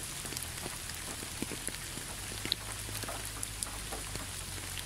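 Steady rain falling, with scattered single drops heard as small ticks over a faint low rumble.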